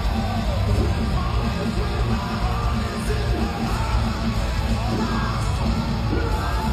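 A rock band playing live with a heavy low end, the lead singer singing into his microphone over guitars, bass and drums, as picked up from the crowd.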